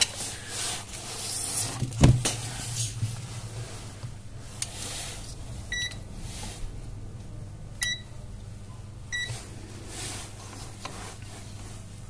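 ANENG Q1 digital multimeter giving three short high beeps, about two seconds apart, as its buttons are pressed to set it up for a continuity check. A sharp knock comes about two seconds in, over a steady low hum.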